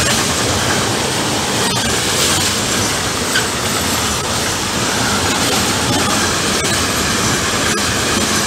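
Intermodal freight train of container and trailer-carrying wagons rolling past close by, a loud steady rumble of wheels on rail with irregular sharp clicks from wheelsets crossing rail joints. A brief squeak from the wheels comes a little over three seconds in.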